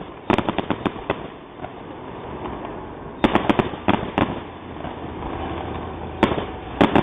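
Fireworks going off in a finale: clusters of sharp bangs and crackles about a second in, again around three seconds in and near the end, with rumbling echo between the volleys.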